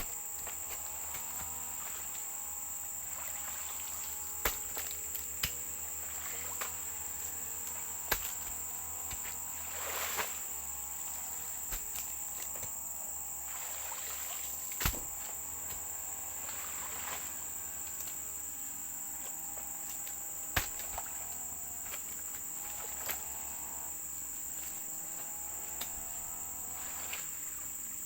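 Steady high-pitched insect drone. Under it, a distant grass-cutting machine engine rises and falls in pitch. A few sharp clicks come at scattered moments.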